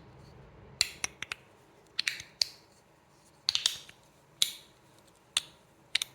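KADA EDC Gummy Bear Slider 2.0 fidget slider being worked by hand: about a dozen sharp, irregular clicks and clacks as its layers are slid back and forth.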